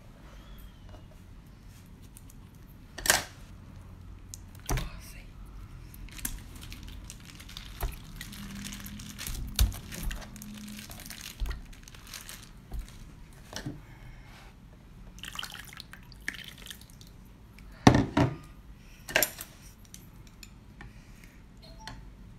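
Food being handled at a plate: a plastic bag of wet food in liquid being cut open and squeezed, with liquid dripping and scattered sharp clicks and knocks against the dish. A cluster of knocks late on is the loudest.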